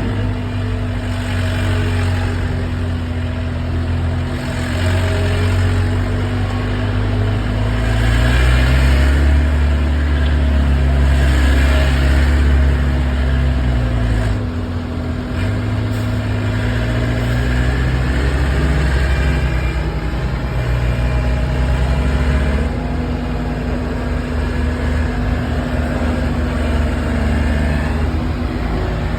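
Skid steer loader's engine running, its pitch rising and falling as it revs up and eases off a few times.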